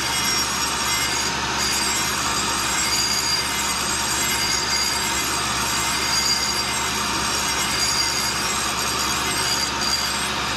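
Cincinnati No. 2 cutter grinder's wheel cylindrical-grinding the bearing surface of a rotating steel line boring bar. The grinding hiss is steady and even, with a constant machine hum underneath.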